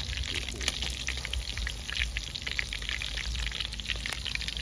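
Scored crispy-skin sausages sizzling and crackling as they deep-fry in hot oil in a pan, a dense run of fine pops, with a low steady rumble underneath.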